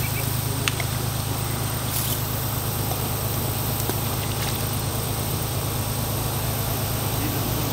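Steady low drone of an idling engine, unchanging throughout, with a few faint clicks over it.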